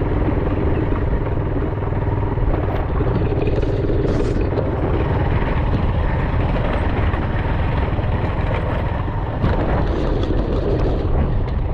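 Motorcycle running on the move, its engine mixed with steady wind rush on the microphone.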